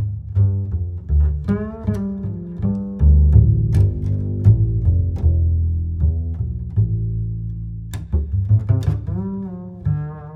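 Music with deep, plucked-sounding bass notes and a wavering higher melody, played back through a small speaker driven by a PAM8403 amplifier board.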